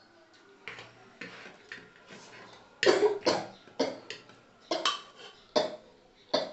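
A steel spoon scraping and knocking against a steel pot and plates as rice is dished out. There are faint clinks at first, then a run of sharp, ringing clanks at uneven intervals starting nearly three seconds in.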